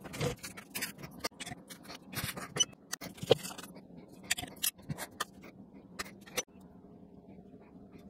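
Irregular small clicks, taps and scrapes of hands working fiber-prep tools: a pump dispenser pressed and a fiber cleaver's clamps and lid clicked. The clicking stops about six and a half seconds in, leaving only faint steady background noise.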